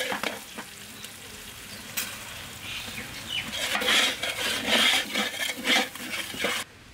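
Oil sizzling in a large metal cooking pot while a long-handled metal spatula stirs and scrapes through frying onions, green chillies and spice mix: the masala base for tehari being fried. It cuts off abruptly near the end.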